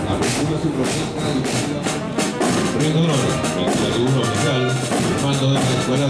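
Music with a drum beat and a melody over it.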